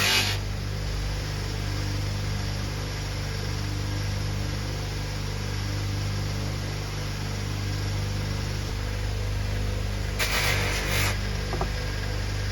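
Electric bench polisher motor running with a steady mains hum. A brief rush of hiss about ten seconds in.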